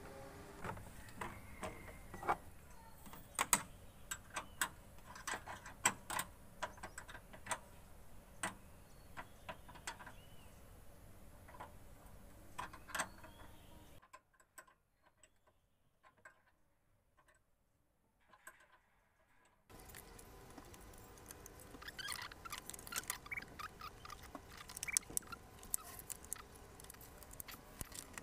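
Irregular plastic clicks and taps from hands fastening cable ties and fitting plastic trim pieces at a car's grille and radiator cover, with a few seconds of near silence in the middle.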